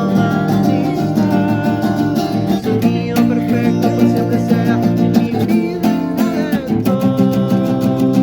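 Acoustic guitar strummed in a live acoustic song, changing chords about three seconds in and again near seven seconds.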